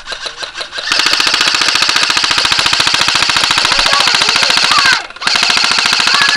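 Airsoft electric rifles (AEGs) firing on full auto, a fast even rattle of shots. Fainter fire comes from farther off in the first second, then a long loud burst starts about a second in, breaks off briefly near five seconds, and a second burst follows.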